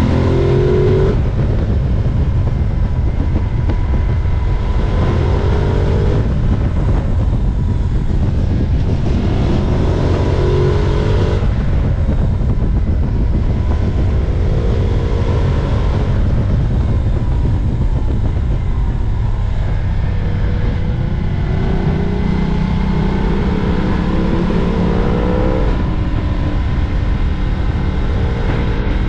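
Ducati Multistrada 1260 Pikes Peak's L-twin engine being ridden hard, its pitch climbing again and again as it accelerates out of bends and falls back, over a steady rush of wind on the microphone.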